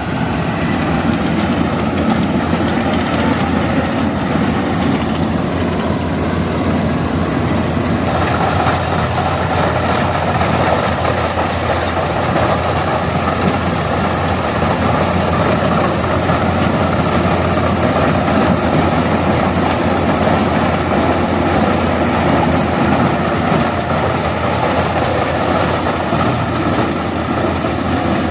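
Yanmar AW82V combine harvester's diesel engine and threshing machinery running steadily under load while harvesting rice. The sound grows fuller about eight seconds in.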